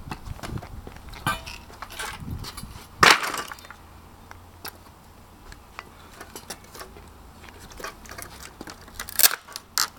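Scattered knocks and creaks of wooden pallet boards and a steel pallet-breaker lever as a pallet is worked apart by hand and underfoot. There is one loud sharp knock about three seconds in and a couple of sharp knocks near the end.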